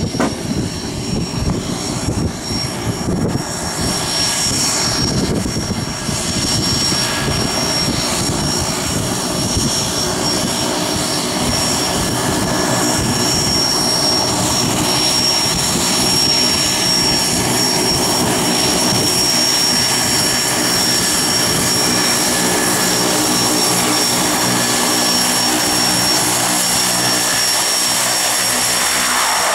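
Engine of a turbine-converted de Havilland Otter floatplane running at low taxi power, its propeller turning and the turbine giving a steady high whine. The sound grows louder over the first ten seconds or so as the plane comes in, then holds steady.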